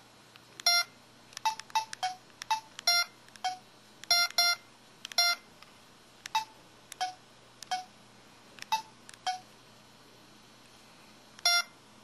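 SPH-X7500 mobile phone keypad beeping: a string of short, clipped button tones at irregular intervals, about seventeen in all, with a pause of about two seconds near the end.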